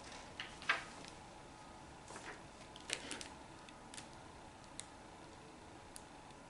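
Quiet room tone with a few short, faint taps and rustles of handling, the clearest about a second in and around three seconds in.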